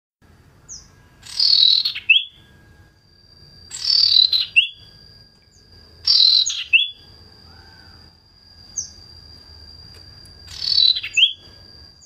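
Female common iora (cipoh) calling: four harsh, rasping calls a few seconds apart, each ending in a short sharp note, with a few thin high chips between.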